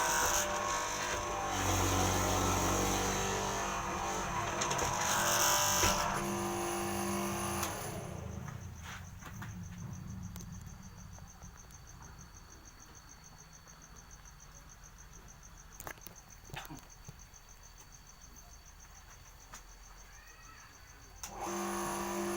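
Electric motor of a door-mortise cutting machine running and cutting wood, then winding down about eight seconds in. In the quieter stretch an insect's steady high trill and a few clicks are heard, and the motor starts up again near the end.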